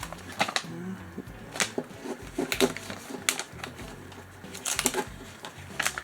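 Small plastic LEGO parts bags being handled, giving irregular clicks and crinkles as the pieces inside shift.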